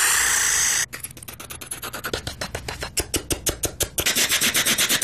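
A person's mouth imitation of a helicopter: a breathy hiss for about a second, then fast rhythmic puffs and clicks, about ten a second, for the rotor blades, which grow louder about four seconds in.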